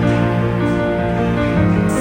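Background music: a soft instrumental track with sustained, slowly changing chords and some plucked guitar.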